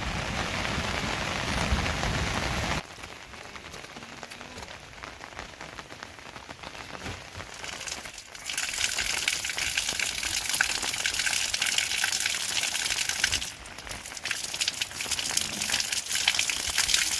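Rain falling in a steady hiss. It drops to a lighter, quieter patter about three seconds in, then comes back heavier and denser with crackling drops from about eight seconds on.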